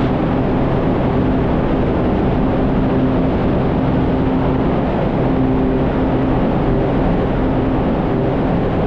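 A loud, steady racket inside a rock road tunnel: an even roar with a low hum that fades in and out.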